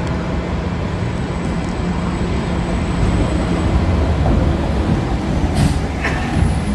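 New Flyer XE40 battery-electric bus moving slowly past at close range: a low rumble with a steady electric drive hum, and two short hisses near the end.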